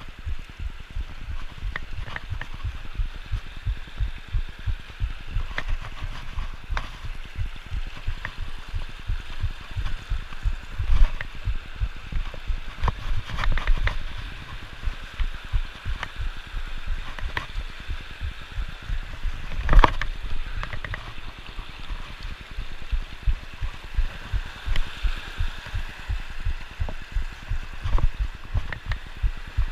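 Mountain creek rushing and splashing over rocks in a steady wash, with frequent low thumps and knocks of footsteps on stones close to the microphone, and a sharper knock about twenty seconds in.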